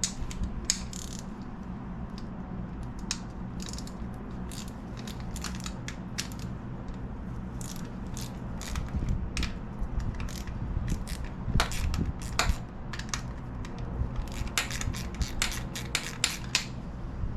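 Irregular metallic clicking and ratcheting from working on the Suzuki DR200's cam chain tensioner, checking that its plunger still extends, over a steady low hum.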